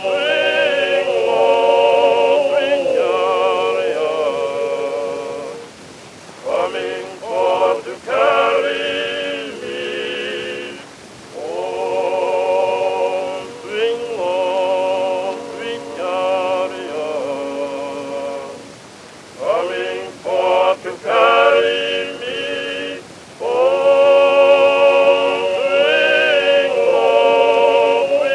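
Music with a singing voice: long held notes with vibrato, in phrases broken by short pauses.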